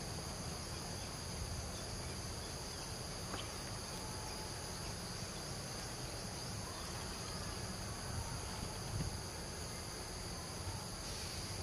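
Steady high-pitched chorus of insects, several even droning bands that run without a break, over a constant low rumble.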